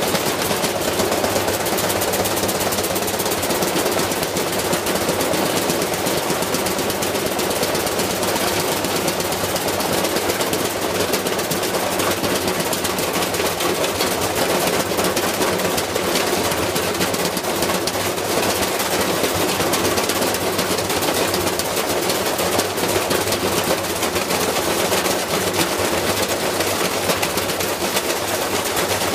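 Whirlpool washing machine spinning a deliberately unbalanced heavy load, banging and rattling in a rapid, unbroken hammering as the machine is wrecked.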